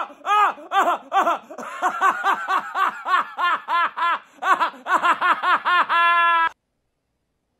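A man laughing hysterically, loud and high-pitched, in rapid rhythmic bursts about three a second, ending in one held squeal that cuts off suddenly.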